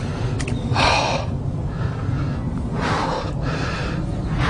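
A man breathing hard while playing a fish: several loud, heavy breaths a second or two apart, over a steady low rumble.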